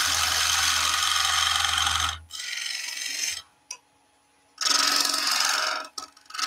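Skew chisel cutting a spinning softwood spindle on a wood lathe: a hissing, scraping cut for about two seconds, a quieter stretch, a pause of about a second, then two more short cuts.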